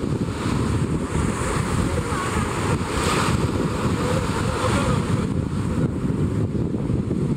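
Wind buffeting the microphone, a steady low rumble, over the wash of sea waves.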